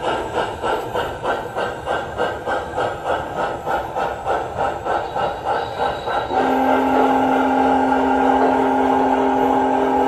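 Sound system of an MTH Premier PS3 model of Union Pacific Big Boy 4014, chuffing in an even rhythm as the train runs. About six seconds in, a steam whistle with several notes at once sounds and is held, louder than the chuffing.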